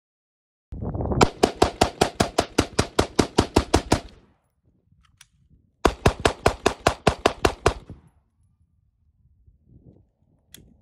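Rapid semi-automatic gunfire from a handgun at a shooting range. It comes in two fast strings of about six or seven shots a second: close to twenty shots, a pause of nearly two seconds, then about ten more.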